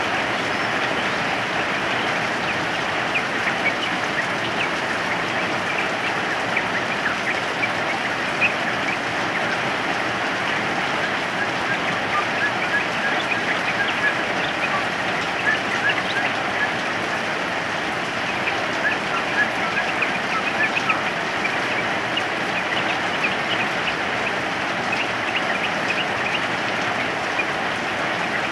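Steady rain falling, with yellow-vented bulbuls giving short chirping calls scattered throughout.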